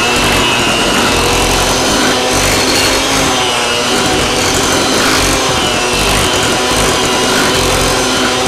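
Electric hand mixer running steadily, its beaters whipping cream cheese frosting of confectioners' sugar, cream cheese and margarine in a bowl to beat out the lumps.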